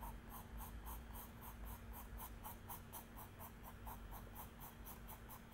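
Pencil hatching on drawing paper: faint, quick, even scratching strokes of graphite, about five a second.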